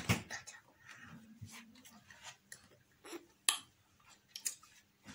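Faint mouth sounds of children chewing candy, with lip smacks, and a few scattered sharp clicks from the plastic surprise-egg halves being handled on the table; the loudest click comes right at the start.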